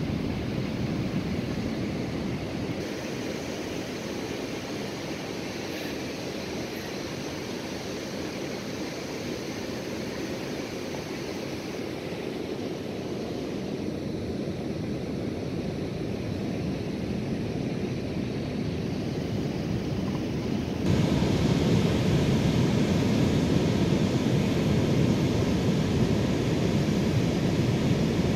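Steady rushing beach ambience of wind and surf, with no distinct events. It steps louder about three quarters of the way through.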